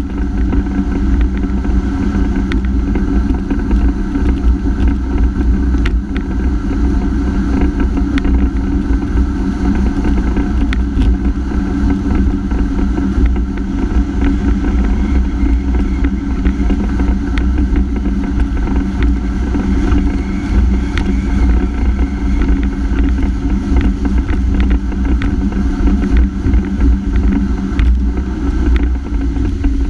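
Honda F-12X AquaTrax's turbocharged four-stroke engine running at a steady pitch under way, with a heavy rumble of water and wind beneath it. The new turbo has failed, so the ski, though held at full throttle, makes only about 28 mph instead of 60.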